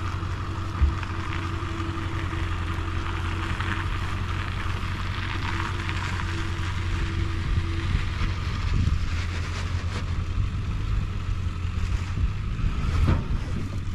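Diesel engine of tracked excavation equipment running steadily with a low hum, joined by a faint steady higher tone that stops about eight seconds in.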